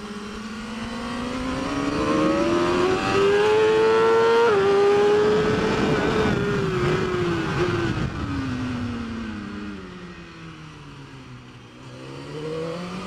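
Superbike engine at race pace: the revs climb to a sudden drop at an upshift about four and a half seconds in, then fall away gradually for several seconds as the bike slows, and climb again near the end.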